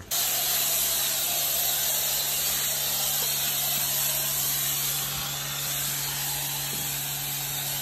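Car-wash spray wand spraying foam onto a car: a loud, steady hiss with a low steady hum underneath.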